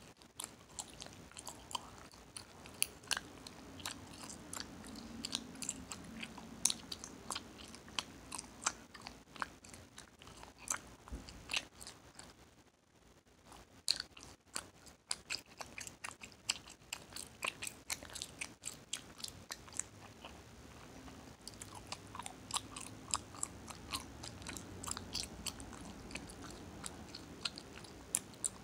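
Open-mouthed chewing of Hubba Bubba bubble gum: a steady run of wet smacks and sharp clicks from the gum, several a second, with a short pause a little before halfway.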